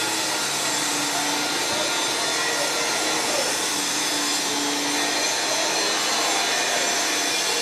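Steady loud rushing noise that drops suddenly at the very end, with faint distant voices beneath it.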